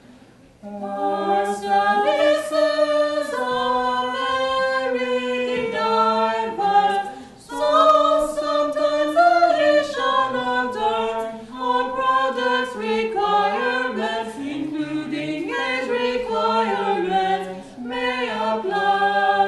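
Small a cappella choir of three voices, a man and two women, singing a melody in harmony. The singing starts about a second in and pauses briefly about seven and a half seconds in.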